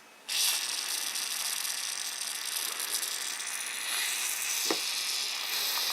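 Aerosol can of WD-40 spraying in one long, steady hiss into a nitro starter's one-way bearing, soaking its gummy roller bearings. A short click comes a little before the end.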